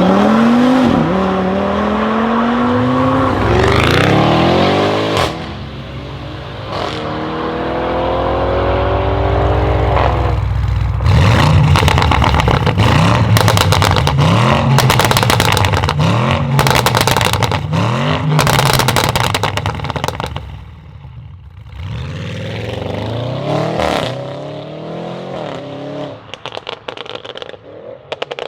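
Stage 2 tuned Audi RS6 C8's twin-turbo V8 through a Capristo straight-pipe exhaust with the particulate filter deleted. It accelerates hard through several upshifts, then from about halfway is revved in quick blips about once a second amid dense crackling and popping. A last rev near the end trails off into scattered pops.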